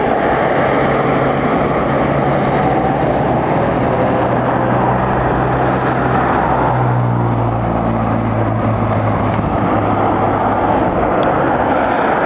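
Land Rover Discovery on the move, heard from on board: a steady low engine drone under loud road and wind rush. The engine note shifts and grows stronger about halfway through, then settles back.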